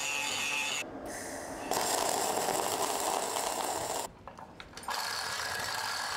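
Metalwork on steel in quick succession: a power tool with a steady high whine, then a couple of seconds of rough crackling typical of arc welding, a sudden short gap about four seconds in, then a steady tool noise again.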